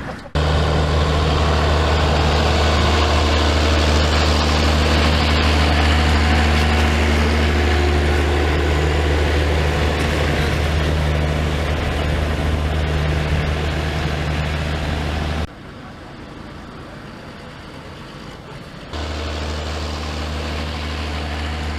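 A heavy engine running steadily with a deep, even hum. It cuts off abruptly about fifteen seconds in, leaving quieter mixed background noise, then comes back at a lower level a few seconds later.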